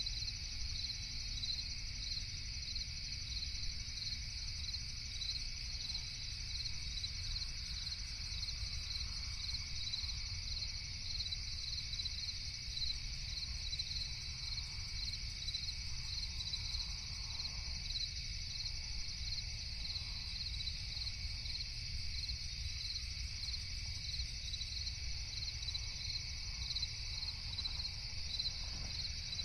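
A night chorus of crickets chirping steadily in a high, evenly pulsing trill, over a constant low background rumble.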